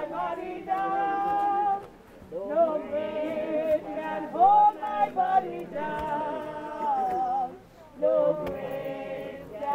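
A group of men and women singing a hymn together in long held phrases, with short pauses for breath about two seconds in and again about eight seconds in.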